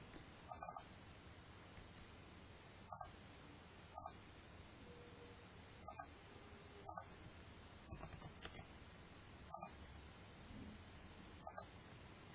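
Computer mouse clicking: about ten short, sharp clicks at irregular intervals, some in quick pairs and a small flurry about eight seconds in.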